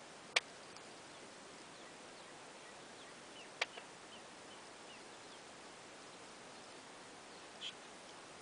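Quiet woodland ambience with a steady faint hiss and faint, scattered short bird chirps. Two sharp clicks come, one just after the start and one about three and a half seconds in, and a brief higher chirp comes near the end.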